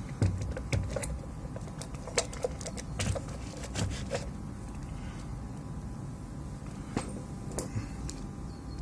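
Scattered light clicks and taps, about ten at irregular intervals, from multimeter test probes being handled and placed on a PS4 Slim power supply board to check its standby voltages. A faint steady hum runs underneath.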